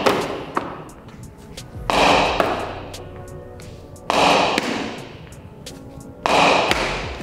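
A baseball thrown hard against a concrete wall: three loud smacks about two seconds apart, each ringing on briefly in the bare room, with a lighter knock shortly after each.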